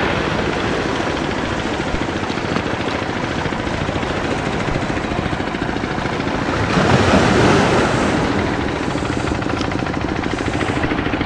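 A steady engine throb over the wash of waves, swelling briefly about seven seconds in.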